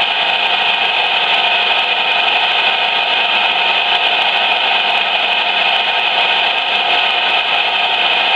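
CB radio speaker putting out a steady, loud rush of noise, squeezed into the radio's narrow audio band, from a station holding its transmitter keyed without speaking.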